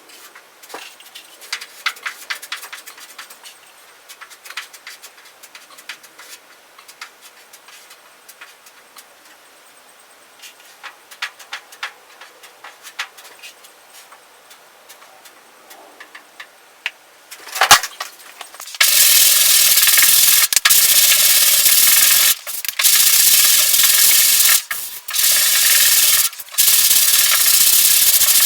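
Faint scraping and ticking from handwork, then about two-thirds of the way in a power sander starts and runs loud in several bursts with short pauses, sanding body filler on the truck cab's sheet metal.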